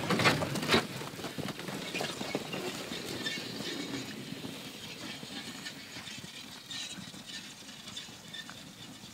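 A horse walking on packed snow while towing a wooden sled: irregular soft hoof thuds and crunches over a light scraping hiss of the runners, with a couple of sharper knocks in the first second. The sound slowly fades as the horse and sled move away.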